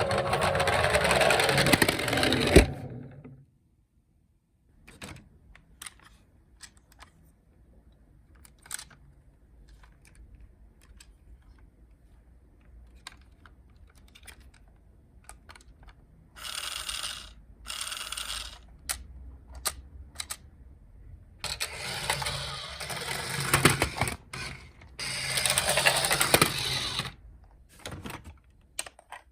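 Toy minicars rolling down a slope, a noisy rattle of small wheels: a loud run of about three seconds at the start, two short runs about two-thirds of the way in, and a longer run near the end, with scattered light clicks and knocks between.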